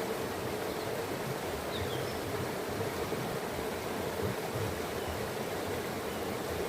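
Running water rushing steadily, with a faint short bird chirp or two about two seconds in.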